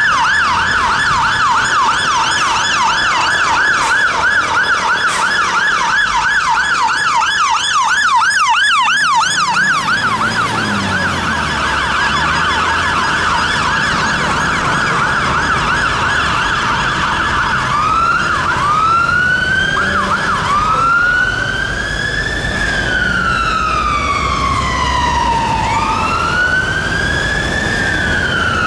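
London Fire Brigade fire engine sirens responding: a fast yelp at first, then, about two-thirds of the way in, a slow wail rising and falling every few seconds. A diesel truck engine can be heard running underneath as the appliances pass.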